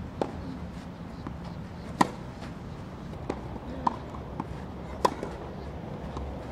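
Tennis ball struck by a racket during groundstroke practice: two sharp, loud pops about three seconds apart, with fainter ball bounces on the clay and hits in between.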